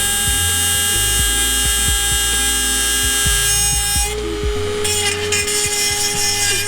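Dremel 4000 rotary tool with a sanding pad running at high speed, a steady high-pitched whine, grinding down the cracked end of an exhaust pipe so it no longer rattles. The whine changes about four seconds in.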